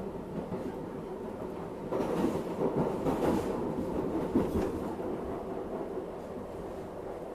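New York City subway 7 train running through a tunnel, heard from inside the front car: a steady rumble of wheels on rails. About two seconds in it grows louder, with a stretch of wheel clatter over the track lasting about three seconds, then settles back.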